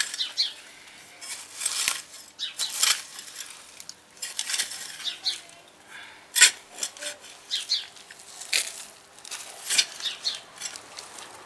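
Metal garden fork opening a compost pile: the tines stab into and scrape through the compost and dry leaves, and the turned material crunches and rustles, in irregular strokes about once a second.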